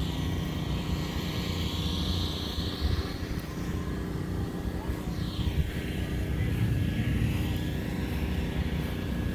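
Steady low engine drone, with a higher hiss that swells and fades over it.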